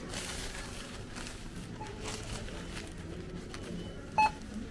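Thin plastic carrier bag rustling as it is pulled out and handled, then near the end a single short electronic beep from a supermarket self-checkout machine.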